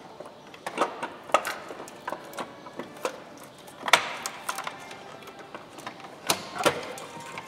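An irregular series of sharp plastic clicks and knocks as gloved hands unclip hose fittings and electrical connectors in a car's engine bay.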